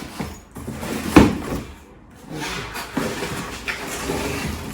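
Cardboard box and packaging being handled and opened: scraping and rustling, with a sharp knock about a second in.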